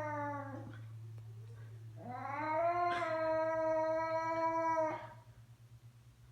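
Domestic cat making long drawn-out yowls: one call trails off under a second in, then a second call starts about two seconds in and is held at a steady pitch for about three seconds before it stops.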